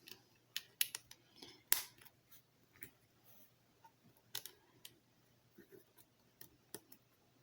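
LEGO plastic pieces clicking and tapping as they are handled and pressed together: a scatter of short, sharp clicks at irregular intervals, the loudest about two seconds in.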